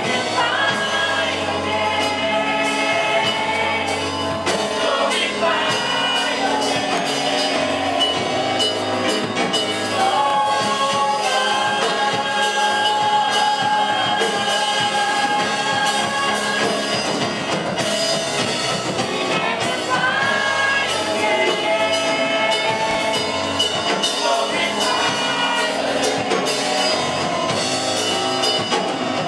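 Live gospel praise and worship song: a group of singers holding long notes over instrumental accompaniment.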